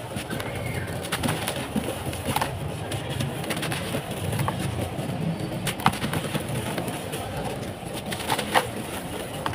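Dry, dusty sand-cement chunks crumbled and sifted by hand: a steady gritty crunching with scattered sharp cracks, two louder snaps about six seconds in and near the end.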